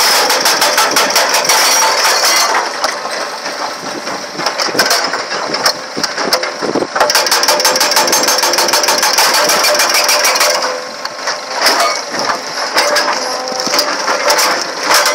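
Excavator-mounted hydraulic rock breaker hammering rock with rapid, even blows for the first couple of seconds and again through the middle. Between these runs come scattered knocks and cracking as the stone breaks apart.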